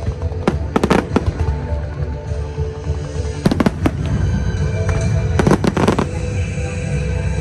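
Fireworks bursting in clusters of sharp bangs, about a second in, again around three and a half seconds in and near six seconds, over a steady low rumble, with music playing.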